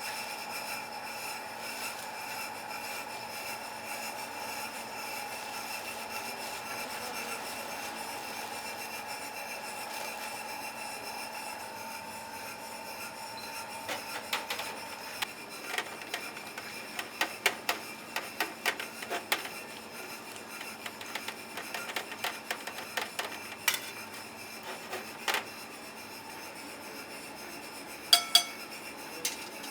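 Kitchen work noise: a steady hum, then from about halfway a run of clicks and clatter from utensils and dishware, with two ringing clinks near the end.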